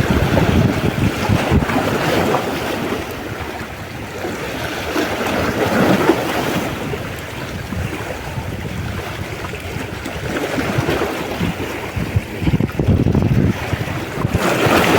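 Wind buffeting the microphone over the wash of sea waves, rising and falling in strength.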